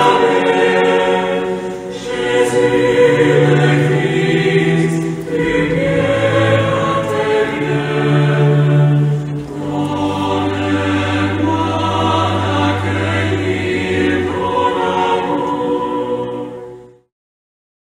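Many voices singing a slow, meditative Taizé chant in long held phrases, stopping abruptly near the end.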